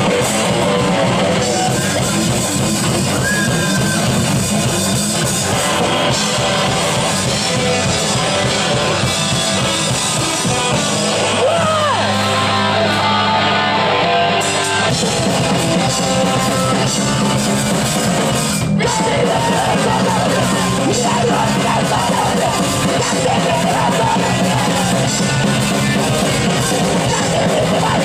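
Live rock band playing loud: distorted electric guitars, bass and drum kit, with shouted vocals. Partway through, the drums stop for a few seconds under a held low note, then the full band comes back in.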